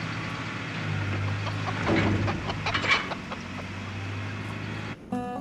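Chickens squawking and clucking in stacked wire crates on a loaded truck, with a burst of louder calls and knocks about two seconds in, over the steady low hum of an idling truck engine. Acoustic guitar music starts right at the end.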